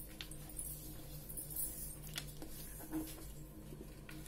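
A square of craft paper being folded and creased by hand: faint, scattered paper crinkles and light clicks over a low steady hum.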